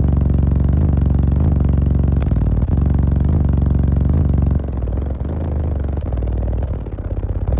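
Car audio system of fourteen 18-inch subwoofers playing bass-heavy music: long, deep bass notes that change pitch every second or two, with a rattle over them. The bass drops somewhat a little past halfway.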